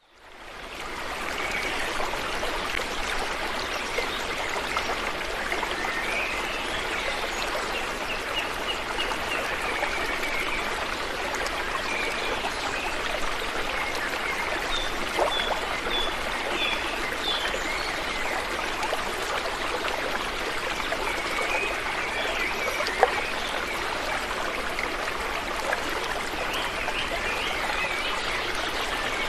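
Shallow stream running over rocks: a steady rush of water with fine trickling, fading in over the first second.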